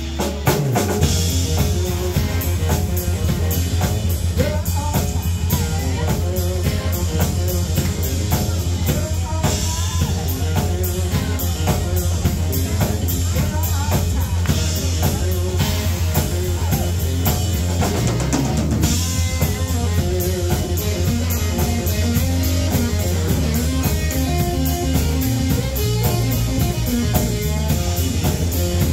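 Live rock trio playing: electric guitar, electric bass and drum kit, with a steady bass line under a driving drum beat. The full band comes in within the first second after a brief falling slide.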